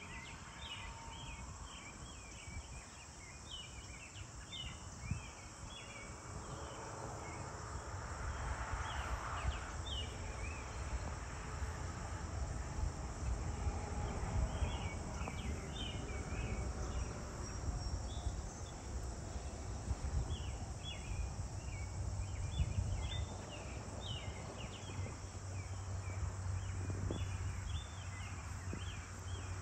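Insects chirping in short, repeated, irregular clusters of high chirps, over a low rumble that grows louder after the first few seconds.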